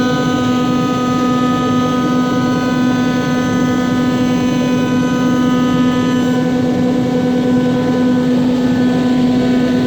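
5-axis CNC machine cutting: a steady pitched spindle hum with many overtones over a rough cutting noise. Some of the higher overtones fade out about six seconds in.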